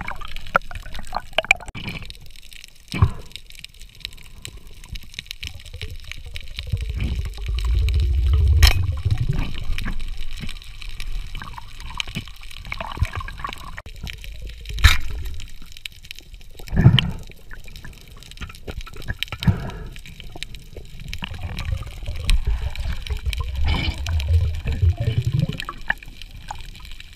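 Underwater sound picked up by a camera in its housing: muffled water movement with low rumbling swells and a steady crackling hiss, broken by a few sharp knocks and clicks.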